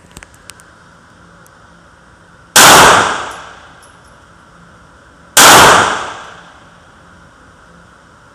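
Two shots from a Taurus PT111 G2 Millennium 9mm pistol, a little under three seconds apart, each ringing out in the echo of an indoor range. A few light clicks come just before them.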